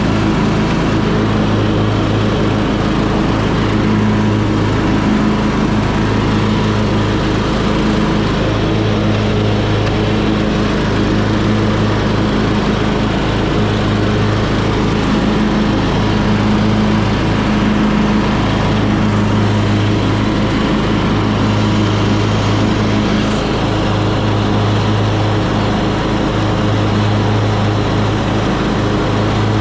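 Troy-Bilt Bronco riding tractor's engine running steadily, a loud even drone.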